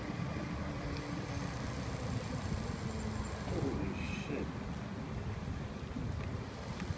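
Steady rumble of a bicycle ride: wind buffeting a handlebar-mounted microphone and tyres rolling over brick pavers.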